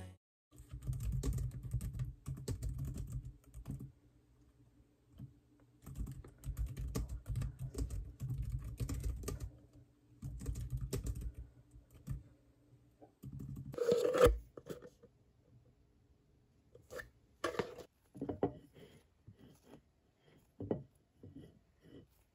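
Fast typing on a Logitech K380 keyboard in three bursts of dense key clicks with short pauses between them. About fourteen seconds in comes a single louder knock, then a metal spoon scraping spread across slices of bread in separate short strokes.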